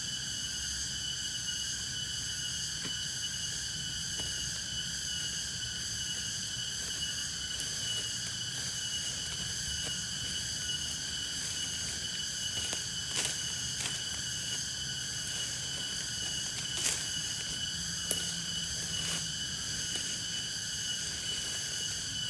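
Steady night chorus of crickets and other insects, several steady high trills at different pitches, over a low rumble, with a few faint clicks in the second half.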